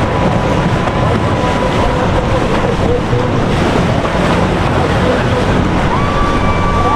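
Boat engines running amid rushing water, with wind buffeting the microphone in a loud, steady rumble. A faint thin whine comes in about six seconds in.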